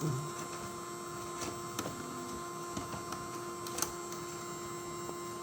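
Creality 3D printer with its CFS filament units powered and running: a steady hum with a few faint clicks.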